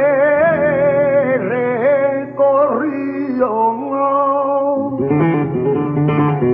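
Male flamenco cantaor singing a wavering, ornamented vocal line over a flamenco acoustic guitar accompaniment, with a few sharp strokes about five seconds in.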